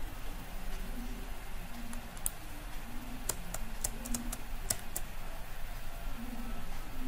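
A quick run of about eight sharp clicks from computer mouse and keyboard use, bunched between about two and five seconds in, over a steady low hum.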